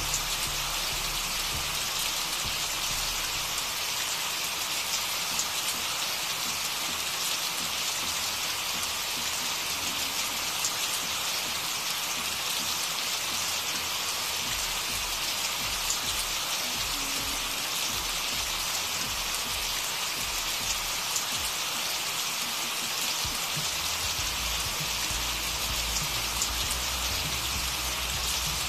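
Steady recorded rain: an even hiss of falling rain.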